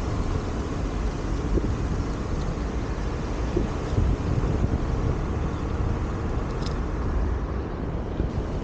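Wind buffeting the microphone of a camera riding along with a Onewheel, over the steady rumble of its tyre rolling on asphalt.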